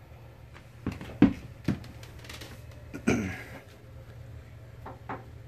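A few sharp clicks and knocks from handling at the washer's control panel: three about a second in, two lighter ones near the end. About three seconds in there is a short throat sound from a man, over a low steady hum.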